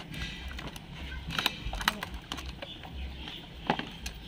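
Screwdriver prying at the metal lock on a brake booster's diaphragm piston: a string of sharp, irregular metallic clicks and scrapes.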